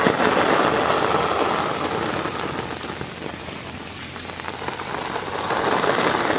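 Heavy rain pouring down in a windy storm, a steady rushing hiss that eases off about halfway through and builds up again near the end.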